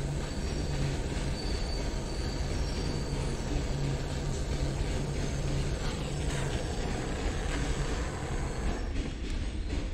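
Handheld butane gas torch burning with a steady hissing rush as its flame brazes copper transformer leads, over a steady low hum. The hiss thins out near the end.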